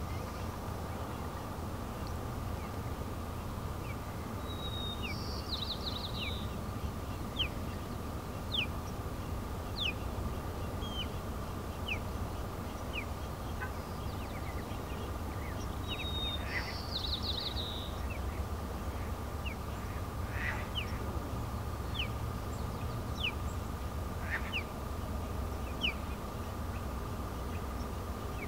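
Birds calling: short high chirps that drop in pitch, roughly one every second or two, with two brief trilled phrases. Under them run a steady low rumble and a thin, steady, faint tone.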